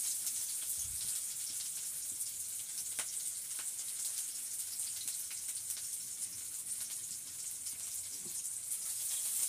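Onion frying in hot oil in a kadai, with a steady crackling sizzle and a faint click or two about three seconds in.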